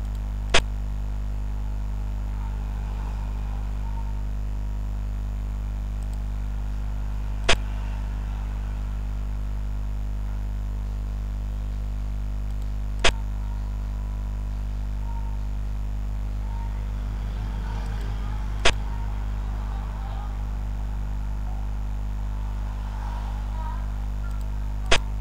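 Five sharp, short clicks, one every five to seven seconds, over a steady low electrical hum. They are the piece-placing clicks of a xiangqi board program as each move of the replayed game is played.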